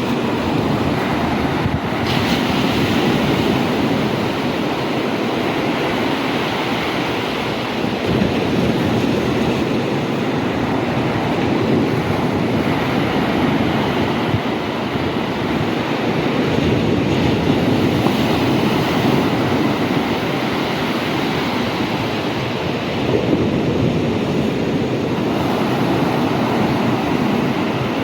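Big sea waves breaking on the shore in a continuous surf rumble that swells and eases without stopping.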